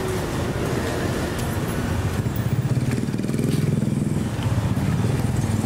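Street traffic: a motor vehicle's engine running close by, growing louder a couple of seconds in, over a steady street hum.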